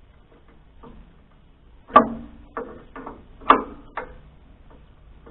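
About five sharp metal clanks and knocks over two seconds, the first with a short ring, from hand tools working the belt tension on a Wood-Mizer LT40 sawmill.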